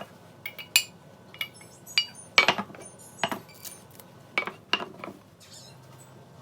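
Metal kitchenware being handled: about ten irregular sharp clinks and knocks, each with a brief metallic ring.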